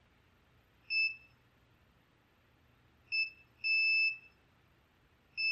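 Digital multimeter's continuity beeper sounding as the probes touch the saw's control wires: two short beeps, a longer beep, then another beep near the end. Each beep signals an electrical connection between the wires being probed.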